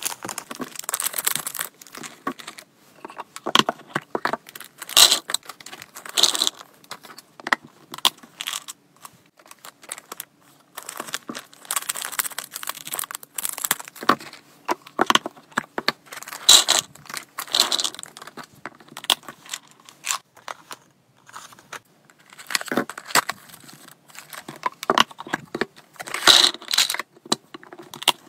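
Plastic treat bags crinkling and rustling in the hands, with dry hamster treats rattling into a plastic storage box and many sharp clicks and knocks.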